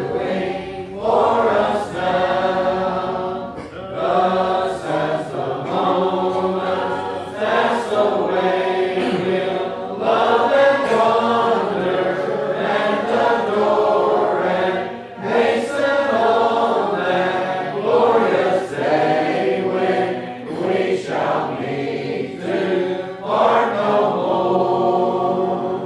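Church congregation singing a hymn together in unaccompanied voices, with long held notes.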